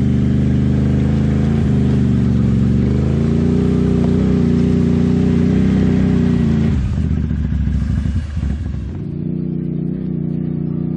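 ATV engine running, its pitch rising about three seconds in. About seven seconds in it falls back and turns uneven, then settles into a steady, quieter run.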